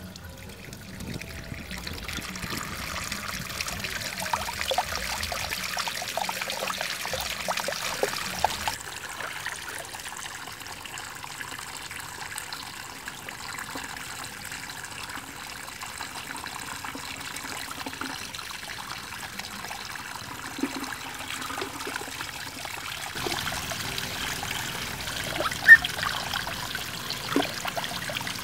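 Water trickling and splashing from the mouth of a tipped terracotta pot onto a slate stone, the flow swelling in the first couple of seconds; later, water spilling over rocks into a pool. One brief sharp knock about three-quarters of the way through.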